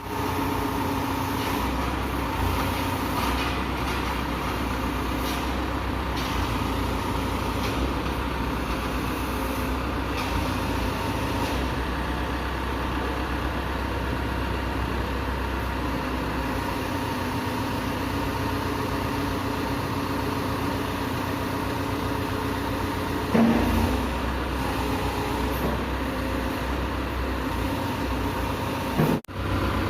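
Diesel engine of a Caterpillar 426F2 backhoe loader running steadily, with one short louder clunk near the end.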